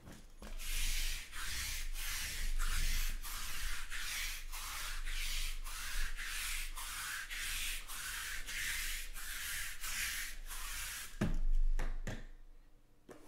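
A sticky lint roller rolled quickly back and forth over a felt mat, giving a rhythmic crackling rasp at about two or three strokes a second. The strokes stop, and a low thump follows.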